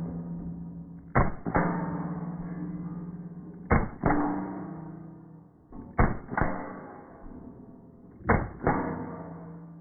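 Pistol-caliber carbine firing four pairs of shots, the two in each pair about a third of a second apart and the pairs a little over two seconds apart. Each pair is followed by a long ringing decay.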